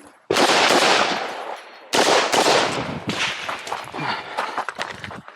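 Saiga 223 AK-pattern rifle in 5.56 firing: two sudden shots about a second and a half apart, each trailing off in a long echo, followed by further uneven reports.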